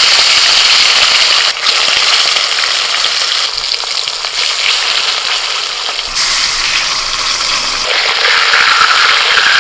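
Thick katla fish steaks frying in hot oil in a wok: a steady, loud sizzling hiss. It changes level abruptly a few times.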